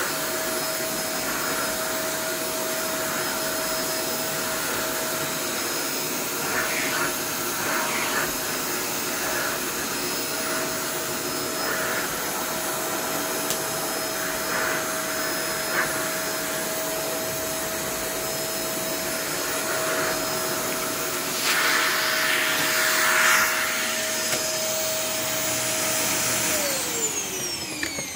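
Eureka Mighty Mite canister vacuum running, a steady high whine over rushing air, as its floor nozzle sucks across carpet, with a few louder rushes of air. Near the end the motor winds down, its pitch falling away.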